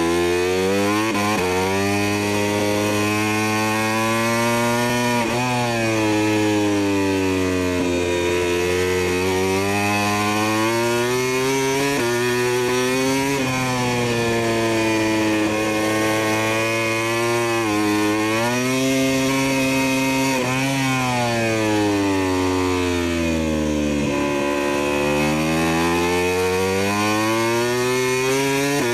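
Motor engine running under load, its pitch climbing smoothly through each gear and dropping sharply at every gear change, about every three to five seconds.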